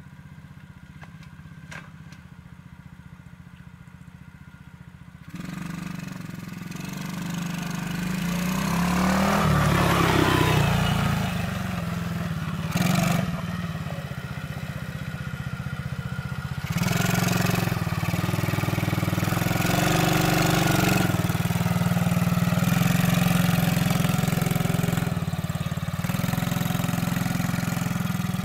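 Engine of a Coolster ATV-3125XR-8U 125cc quad, a single-cylinder four-stroke, running while the quad is ridden. It is faint at first, gets louder from about five seconds in as the quad comes close and passes, has a brief louder moment about thirteen seconds in, and runs steadily after that.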